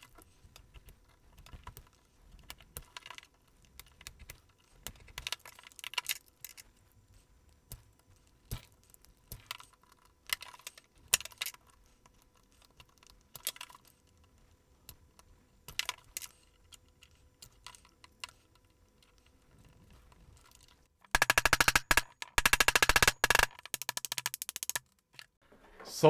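Plastic case of a wall-wart power adapter creaking and clicking as it is squeezed and flexed by hand to break open its seam, which holds. Scattered single clicks at first, then a few seconds before the end a dense run of rapid crackling clicks lasting about two seconds.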